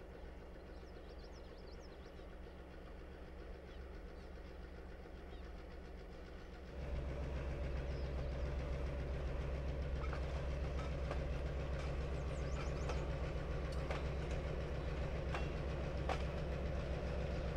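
Diesel engine of an SSB1200 switcher locomotive (a rebuilt EMD SW9) pulling a short grain train: a low steady drone, faint at first and much louder after a cut about seven seconds in, with scattered sharp clicks of wheels on the rail. A few faint bird chirps sound near the start.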